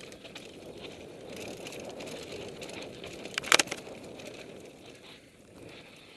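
Mountain bike rolling fast over a dirt forest trail: steady tyre and ride noise with scattered small rattles, and a short, loud burst of sharp clattering knocks about three and a half seconds in.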